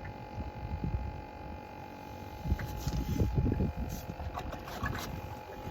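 Wind buffeting the microphone as a low rumble, with a faint steady hum under it. A few knocks and clicks come in from about halfway.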